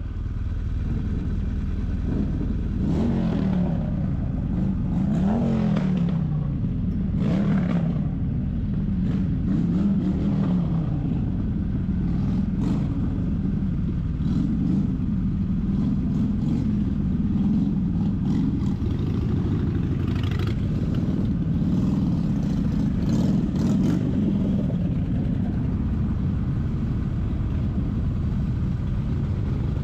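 Motorcycle engine revving up and easing off several times in the first ten seconds, then running fairly steadily at low speed.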